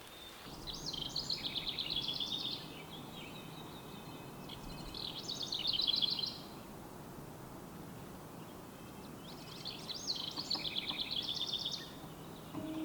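A songbird singing three high, rapid trilled phrases of about two seconds each, a few seconds apart, over faint steady forest background noise.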